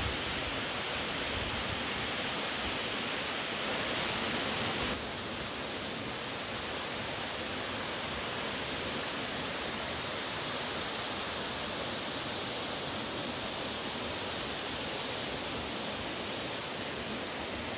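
Steady rushing hiss of waterfalls pouring down a cliff into a pool. About five seconds in it drops slightly and turns a little softer.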